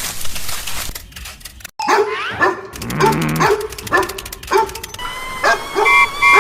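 A dog barking repeatedly in short yaps, about two a second, with a few held tones near the end.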